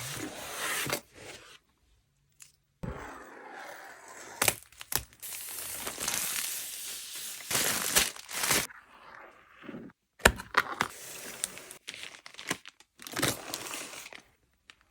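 Diamond painting kit packaging being torn open and crinkled by hand, in stretches of rustling and tearing broken by sharp clicks and brief pauses.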